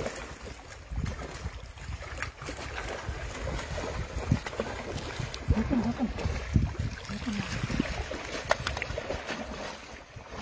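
A hooked fish thrashing and splashing at the water surface as it is played on a rod, over a low wind rumble on the microphone.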